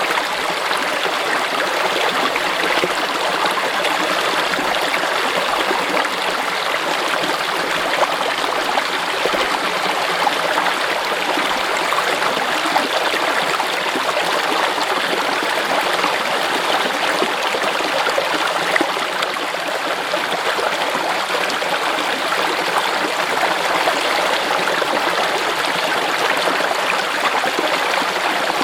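A clear mountain stream running over rocks, a steady rush of water with fine splashing and gurgling.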